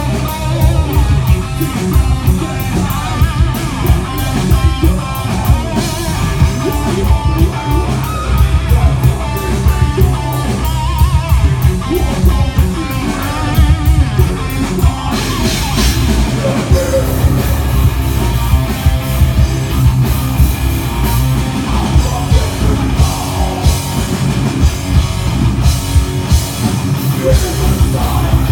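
A rock band playing live and loud: electric guitars, bass and drum kit, with a heavy low end and cymbals washing in from about halfway through. Heard through a smartphone's microphone.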